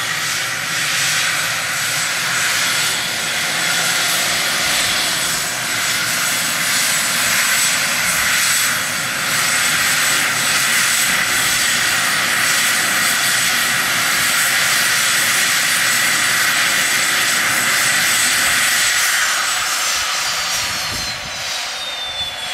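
Cessna Citation Bravo's twin Pratt & Whitney Canada PW530A turbofans running at taxi power, a steady jet rumble with a high whine. Near the end the whine glides down in pitch and the noise fades as the engines spool down.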